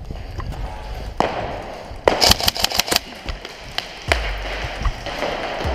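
MK18 airsoft rifle firing a quick string of about eight shots, about a second long, a little after two seconds in, with a few single shots before and after.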